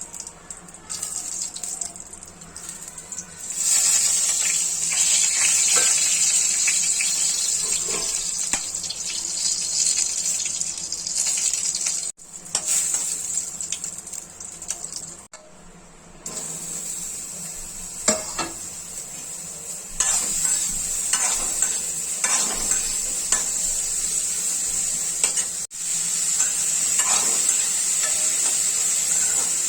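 Food sizzling as it fries in a pan, with a spatula stirring and scraping against the pan now and then. The sizzle cuts off abruptly a few times and starts again.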